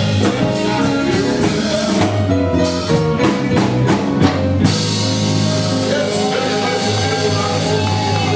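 Live cover band playing rock music with a drum kit, guitar and singing. A run of drum hits leads into a cymbal crash about halfway through, after which the music carries on with long held notes.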